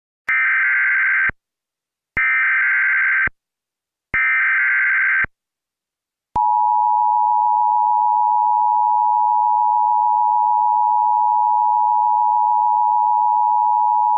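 Emergency Alert System tornado warning: three one-second bursts of warbling SAME header data tones, about two seconds apart. Then, from about six seconds in, the steady two-tone EAS attention signal holds to the end, announcing the tornado warning that follows.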